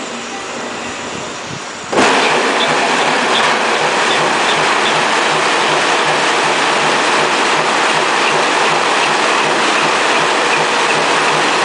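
Sea-shell washing machine running: about two seconds in, a sudden, much louder rush of water and machinery starts, then runs steadily with a regular low pulsing and faint ticks.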